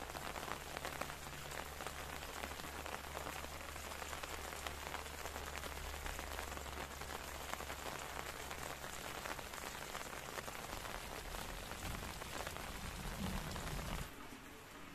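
Steady rain falling, a dense patter of many fine drops.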